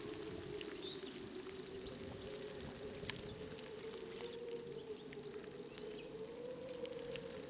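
Outdoor ambience: a steady hum that wavers slowly in pitch, with scattered light ticks and a few faint bird chirps.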